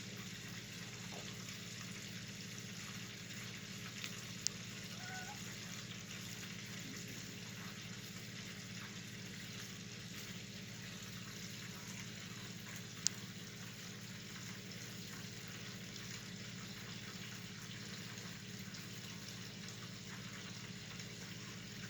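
Water trickling and splashing steadily in a homemade cat water fountain, a submersible pump circulating it up through a colander, with a steady low hum underneath. Two sharp ticks, about four and a half and thirteen seconds in.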